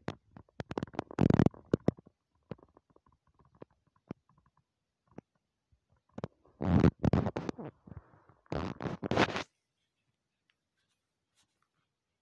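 Handling noise: a hand rubbing and brushing against a phone's microphone in irregular scraping bursts, once near the start and again about seven to nine seconds in.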